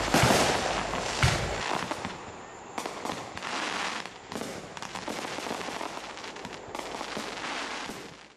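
Aerial firework shells bursting in a rapid barrage: two loud booms at the start and about a second in, then a dense string of smaller bangs and pops. The sound cuts off suddenly at the end.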